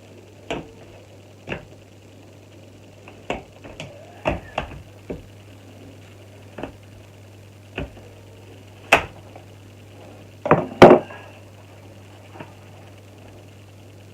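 Scattered knocks and taps from things being handled while a window is cleaned, about a dozen at uneven intervals, the loudest a quick double knock near the end, over a steady low hum.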